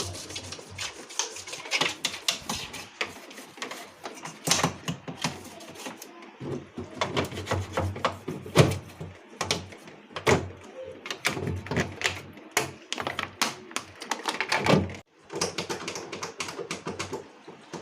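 Small brush scrubbing the plastic inside of a fridge: a rapid, irregular run of scratchy strokes and sharp clicks, with a brief pause about fifteen seconds in.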